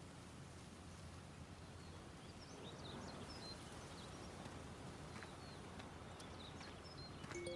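Quiet outdoor ambience with faint, short bird chirps. Near the end a few clear ringing tones start together and hang on.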